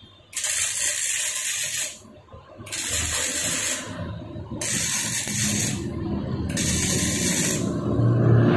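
Gasless flux-core MIG welding arc from a Daiden MIGI 130 welder: a crackling hiss in four bursts of about a second and a half each, with short pauses between, as the torch trigger is pulled and released.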